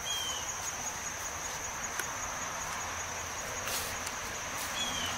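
A steady, high-pitched chorus of insects such as crickets, with a short falling chirp at the start and another near the end.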